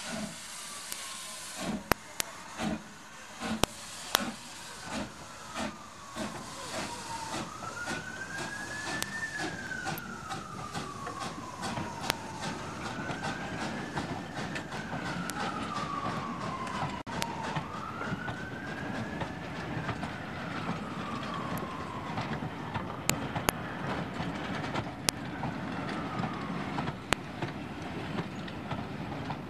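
LMS Fowler 3F 'Jinty' 0-6-0 tank engine 47279 starting away, its exhaust beating in slow, loud chuffs for the first few seconds, then settling into a steady rumble with clicks as its coaches roll past. A wailing tone rises and falls about every five seconds over it.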